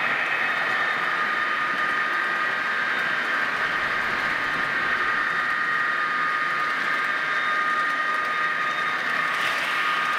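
HO-scale model train running on the layout: a steady electric motor whine over the rolling noise of the wheels on the rails.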